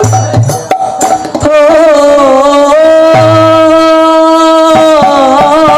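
Devotional music: tabla strokes over a drone, then about a second and a half in a loud, long held tone with slight bends in pitch takes over, with a few more drum strokes near the end.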